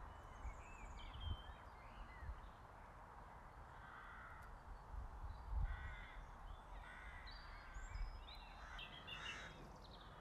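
Faint birds calling and chirping in short scattered bursts, busiest near the end, over a low rumble of wind on the microphone.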